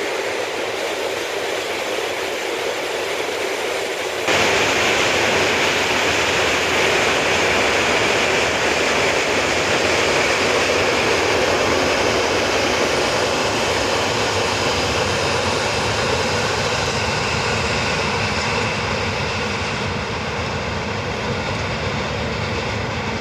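Express passenger train running through a station at speed without stopping: a steady rolling rumble and rush. It gets abruptly louder about four seconds in, then slowly eases off.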